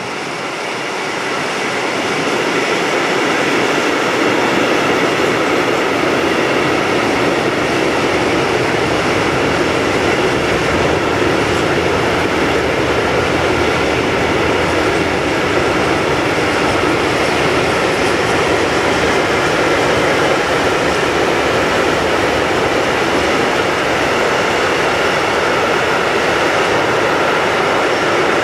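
Long freight train rolling past at speed: the wheels and wagon bodies of a rake of covered hopper wagons rumble and rattle over the rails. The noise builds over the first few seconds, then holds steady.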